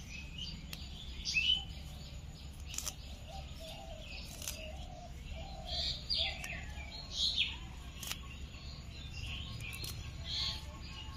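Small birds chirping over and over, short high calls every second or so, with a few faint clicks.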